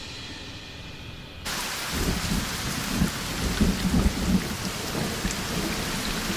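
Rainstorm: heavy rain starts suddenly about a second and a half in, with thunder rumbling low through the middle.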